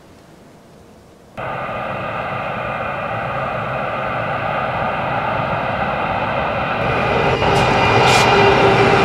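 General Electric E60C-2 electric freight locomotives approaching on the track, a steady whine of several layered tones over a running rumble, growing louder as they near. It starts abruptly about a second and a half in, with a couple of sharp ticks near the end.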